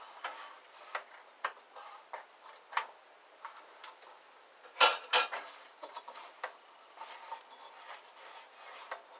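Scattered clicks and clinks of a hex key against the metal upper wheel of a 9-inch bandsaw, with two louder clacks close together about five seconds in.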